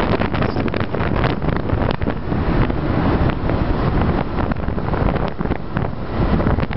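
Wind buffeting the microphone on a moving scooter, mixed with the scooter's engine running.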